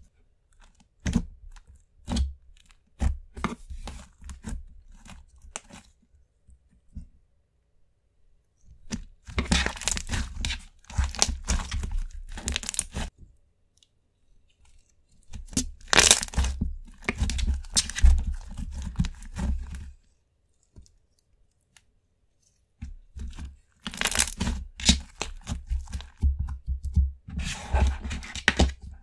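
Hands squishing, poking and stretching a thick creamy slime, giving spells of sticky crackling and popping a few seconds long, with short quiet pauses between them.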